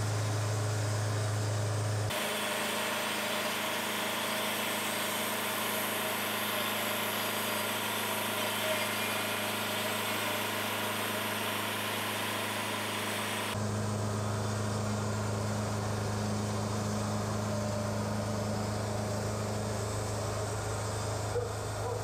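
Wood-Mizer portable band sawmill running steadily as the band blade cuts into a large cherry log: the engine's hum with the blade's hiss in the wood.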